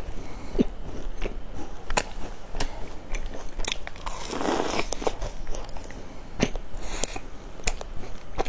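Close-up crunching of a peanut-studded crisp bar being bitten, chewed and snapped apart: sharp cracking crunches, with a louder, denser bite about four seconds in.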